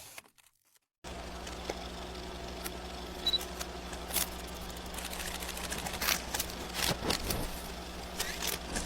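Steady low electrical hum with a dozen or so scattered light clicks and taps; it starts suddenly about a second in, after a moment of silence.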